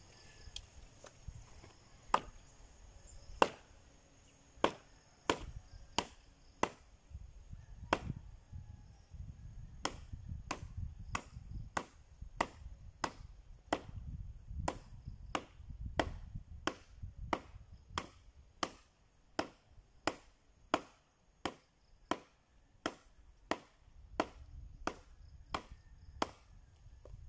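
Machete chopping a rain-soaked, rotten branch: a steady run of sharp chops, about one and a half to two a second, starting about two seconds in.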